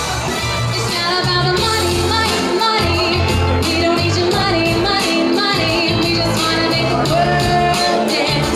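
Loud pop music with a steady beat and a singer's held notes over it.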